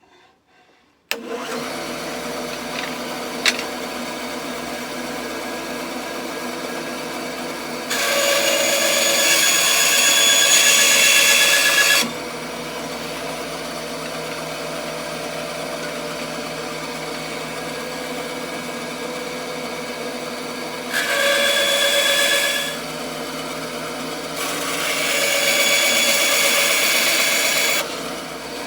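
Power saw starting up about a second in and running steadily. It grows louder and higher-pitched three times, a long cut, a short one and another long one, as it rough-cuts a thick piece of cherry wood into knife handles.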